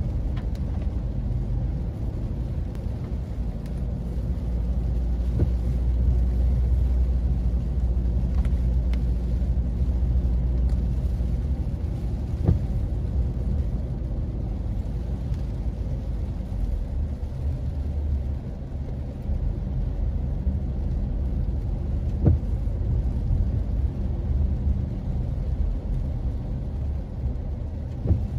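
Steady low rumble of a car driving on wet city streets, heard from inside the cabin, a little louder in the first half. A couple of brief sharp knocks stand out, one about halfway through and one later.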